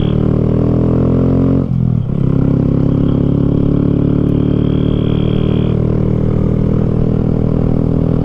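Honda Grom's small single-cylinder engine pulling under acceleration, its pitch rising. About two seconds in it drops sharply at a gear change, then pulls on steadily at a slowly rising pitch.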